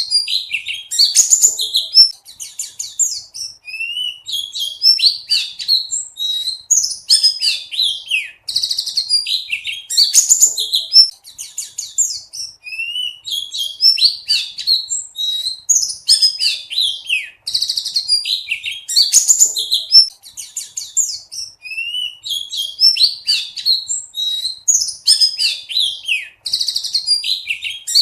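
Pleci buxtoni white-eye singing a fast, high-pitched twittering song of quick chirps and trills, phrase after phrase with short pauses between.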